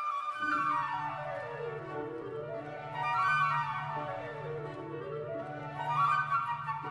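Background classical-style instrumental music: a flute or woodwind line runs down and back up in stepwise scales over a held low note.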